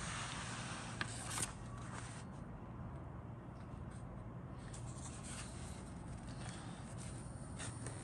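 Paper instruction booklet rustling and sliding under a hand, with a light tap about a second in and a short brush just after. A low steady hum sits underneath.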